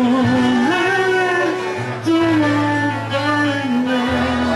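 A man sings a long drawn-out note that steps between a few pitches over acoustic guitar. The guitar is played through a 1978 Fender Princeton Reverb amplifier and an Allen organ speaker cabinet.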